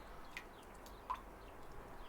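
Faint steady rush of a waterfall with a few short, sharp bird chirps, the loudest about a second in.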